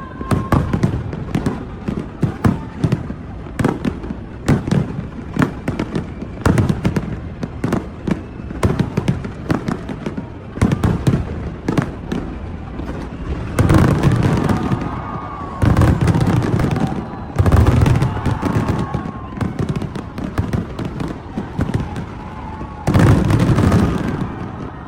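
New Year fireworks display: a rapid string of bangs from bursting shells, with several louder, denser barrages in the second half.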